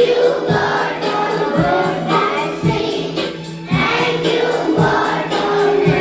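A group of schoolchildren singing in chorus over musical accompaniment, with a steady beat of about two strokes a second.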